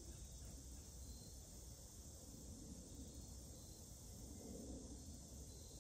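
Near silence: a faint steady hiss with insects chirping softly, in short repeated chirps, over a low rumble.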